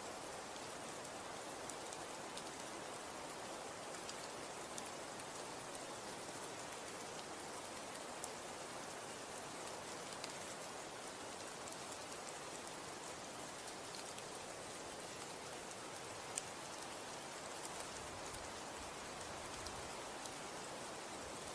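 Snow falling, a steady soft hiss with scattered faint ticks of flakes or pellets landing.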